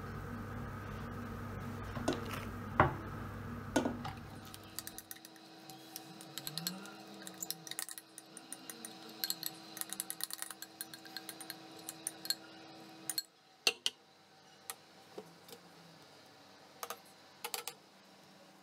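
A metal spoon scraping and clinking against a glass mixing bowl and a metal tart tin while thick chocolate cake batter is scraped out, with a few louder knocks early on. A low steady hum stops about five seconds in.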